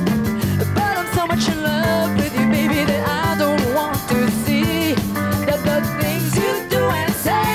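Rock song played by a band: a woman sings lead over electric guitar, bass guitar and drum kit.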